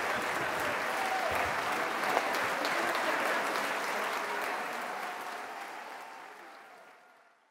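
Audience applauding a symphony orchestra at the end of a concert: a dense, steady clapping that fades away over the last few seconds.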